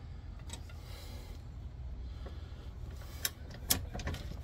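Metal clicks and clinks of a socket, extension and torque wrench being fitted onto a shock absorber's mounting bolt to re-check its torque, with two sharp clicks near the end. A steady low rumble runs underneath.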